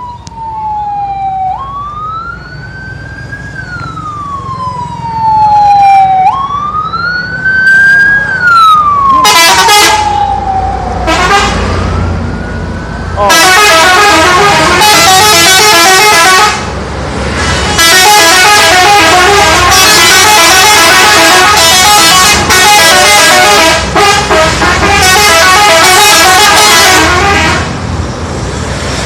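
A siren wails in slow rising and falling sweeps for the first several seconds. About nine seconds in, Indonesian 'telolet' bus horns start up, and from about thirteen seconds they blare rapid, many-note tunes at full loudness, pausing briefly twice.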